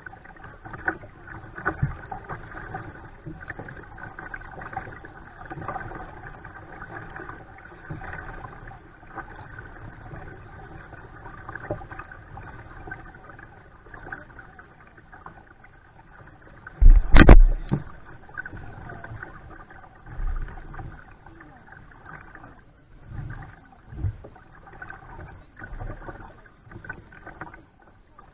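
Kayak paddling on a river: water splashing and dripping from paddle strokes against the kayak's hull, with scattered light knocks and one loud thump about two-thirds of the way through.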